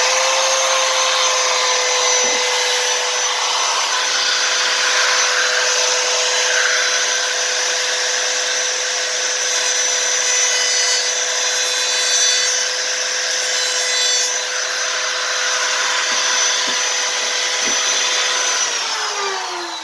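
Handheld router fitted with a door-jamb bit, running at full speed while cutting: a steady high motor whine with rough cutting noise over it. The router winds down with a falling whine near the end.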